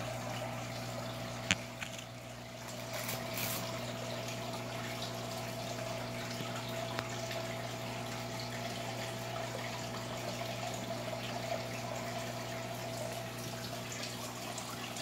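Aquarium filter running: a steady electric hum under a constant trickle of water falling back into the tank. One sharp click about a second and a half in.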